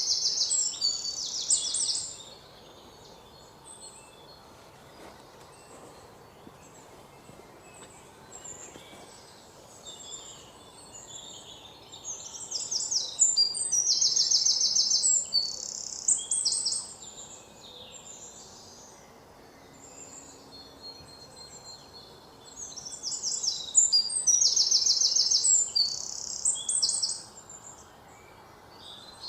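Birds chirping and trilling in three loud bursts of a few seconds, at the start, around the middle and near the end, with fainter scattered chirps between, over a low steady hiss.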